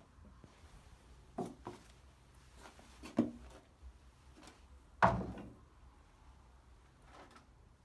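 A few wooden knocks and bumps from handling a door and its timber during fitting: two light knocks close together, another about three seconds in, and the loudest about five seconds in.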